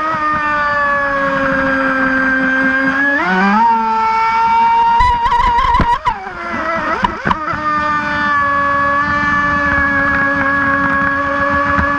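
Brushless electric motor of a fast RC mono-hull boat whining at speed. Its pitch holds steady for stretches and shifts with throttle: it rises about three seconds in, swoops down and back up around the middle, and climbs again near the end.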